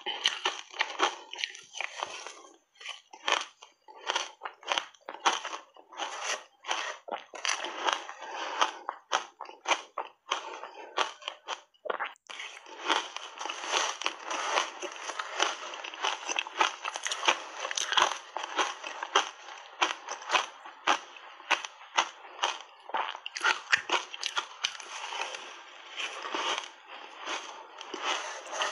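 Shaved ice crunched and chewed in big mouthfuls, close up: a rapid run of sharp crunches that turns denser, almost continuous, after about twelve seconds.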